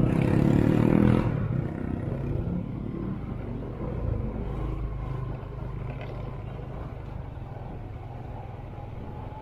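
Motor vehicle engine running steadily with traffic and road noise. A louder rush of noise in the first second or so is followed by a steadier low engine hum that slowly eases off.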